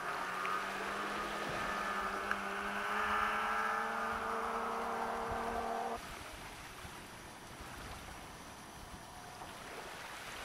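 Distant snowmobile engines running, one slowly rising in pitch as it speeds up. The engine sound cuts off suddenly about six seconds in, leaving only a faint even outdoor hiss.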